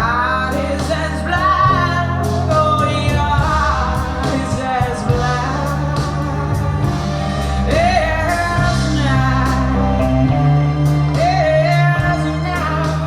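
Slow blues music with a steady bass line, regular drum beats, and a lead line that bends in pitch. It is played through B&W 702 S3 hi-fi loudspeakers and recorded in the room.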